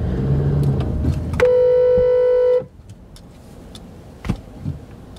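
A car horn sounds one steady blast of a bit over a second, heard from inside a moving car over engine and road noise. It is honked at a car that cuts in front. After the honk the background goes much quieter.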